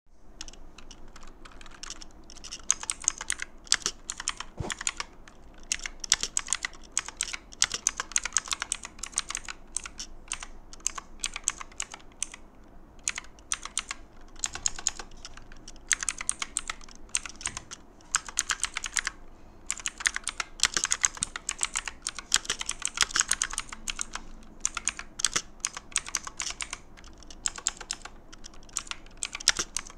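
Armageddon MKA-2C Neo mechanical keyboard with clicky blue switches being typed on: fast runs of sharp key clicks, broken by short pauses.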